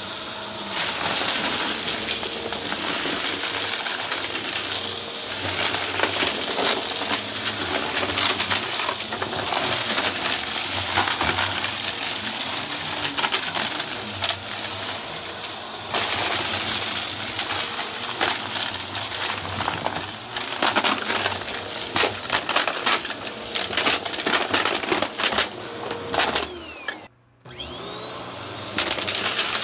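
Upright bagless vacuum cleaner running over carpet with a steady motor whine, its brushroll picking up scattered dry crumbs and lint with dense crunching and crackling as the debris rattles up into the machine. The sound cuts out for a moment near the end.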